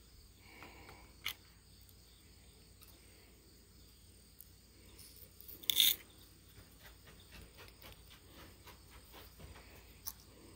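Small gold pieces being tipped into a light plastic cup on a digital pocket scale: a knock about six seconds in, then a run of light ticks over the next few seconds as the gold drops in, with a few other faint clicks.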